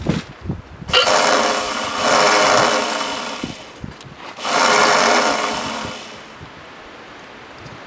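Electric starter motor on a Lawn-Boy mower's Tecumseh engine whirring in two bursts, about two seconds and then a second and a half, with the spark plug disconnected so the engine does not fire. The starter is being tested after its drive gear was lubricated to make it drop and engage the flywheel, and it is not yet quite working right.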